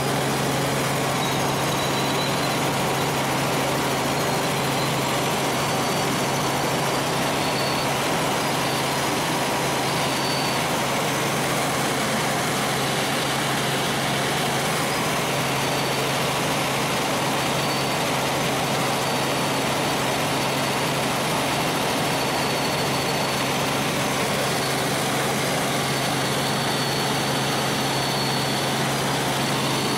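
Helicopter in flight, heard from on board: steady, loud rotor and engine noise with a constant low hum and a faint high whine that comes and goes.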